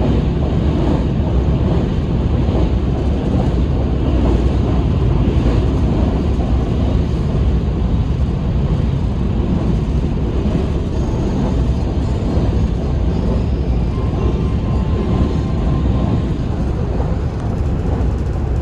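Steady running noise of a train in motion, a constant low rumble with wheel and track noise, heard from inside the carriage.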